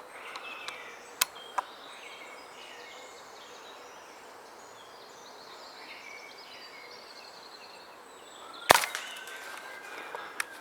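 A single shot from a Walther Rotex RM8 .22 pre-charged air rifle, one sharp crack near the end, over quiet outdoor background. Two small clicks come about a second in.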